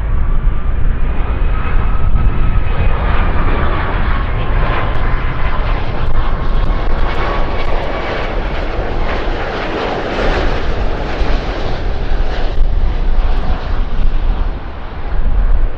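Large jet aircraft passing close on its landing approach: a steady rushing engine noise with a thin whine that slides slowly down in pitch, the noise swelling to its loudest about ten seconds in.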